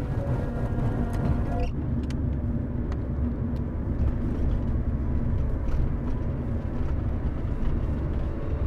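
Steady low rumble of a car driving, heard from inside the cabin. Music playing over it cuts off abruptly less than two seconds in.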